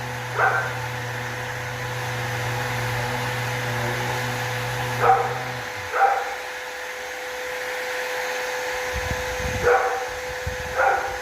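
A dog barking in pairs, twice about a second apart, every few seconds. Under the barks runs the steady hum of the sanding machinery; a lower part of the hum cuts out about halfway through.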